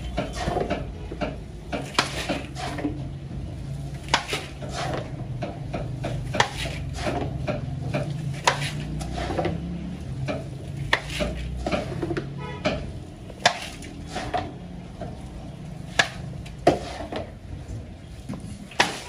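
A metal bowl scraping and knocking against a large aluminium pot as wet rice is scooped out and dumped into perforated aluminium colanders: irregular clanks and scrapes every second or so, over a low steady hum.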